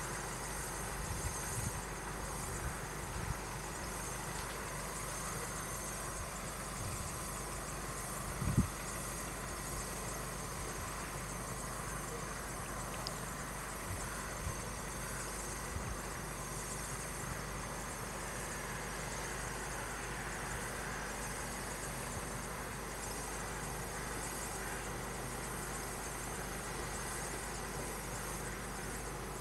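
Cars waiting at a closed level crossing, idling as a low steady hum under a steady hiss with faint constant tones. A single short low thump comes about eight and a half seconds in.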